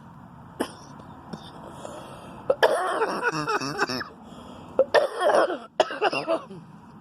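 A woman's coughing fit: a short sharp sound about half a second in, then three loud bouts of coughing, the first lasting over a second.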